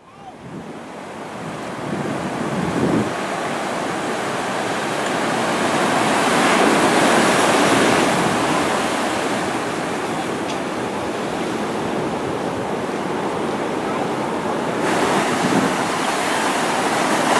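Ocean surf breaking and washing up the beach: a steady rushing wash that swells and eases, fading in at the start.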